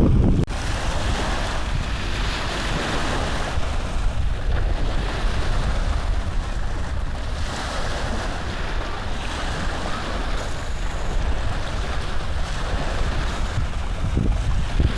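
Steady rushing noise with no speech; a louder low rumble cuts off suddenly about half a second in.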